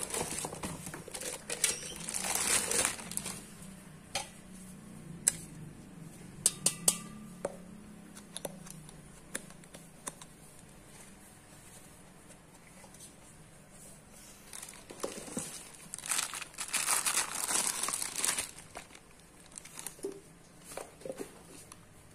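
Packaging rustling and crinkling as plastic bags and cardboard inserts are handled, in two stretches, about a second in and again around sixteen seconds in. Between them come a few sharp knocks as the stainless steel mixer jars and their lids are handled.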